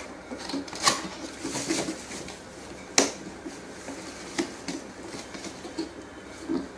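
A cardboard product box being handled and opened by hand: a few sharp taps and knocks on the cardboard, about one, three and four and a half seconds in, with soft rubbing and scraping between.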